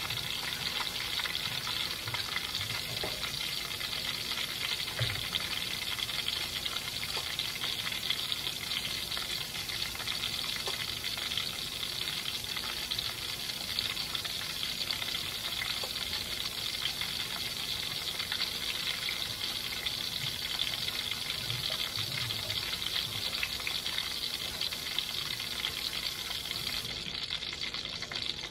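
Kitchen faucet running into the sink, cutting off near the end, over the steady sizzle of crab cakes frying in a pan.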